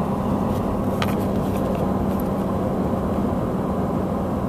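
Steady in-cab engine and road noise of a GM 5.3-litre V8 pickup cruising at about 55 mph on cruise control, with the engine running on all eight cylinders (V8 mode of Active Fuel Management). A steady low hum runs under the noise, and there is one faint click about a second in.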